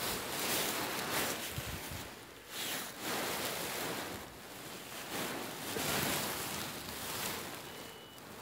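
Wind buffeting the microphone: a rushing noise that swells and fades in gusts every second or two.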